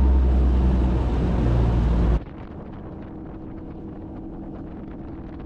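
Bass boat's outboard motor running at speed, a steady low drone with wind buffeting the microphone; about two seconds in it cuts suddenly to a much quieter steady hum of the boat moving over the water.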